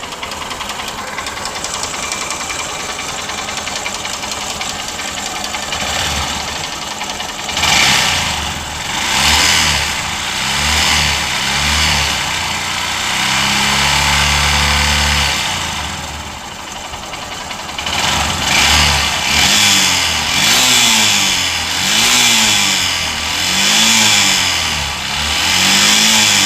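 Honda SP125's single-cylinder engine running at a steady idle, then revved with repeated throttle blips from about eight seconds in, one longer held rev in the middle and a quick run of blips near the end. The engine is making an abnormal noise that the owner has not yet identified, on a nearly new bike.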